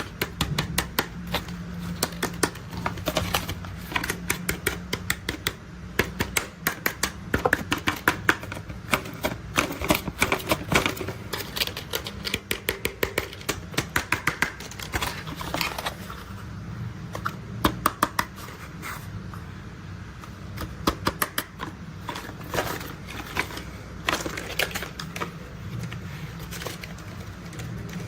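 Rapid, irregular clicking and clattering of hard plastic toy construction vehicles being handled, in bursts of many small clicks, over a low steady hum.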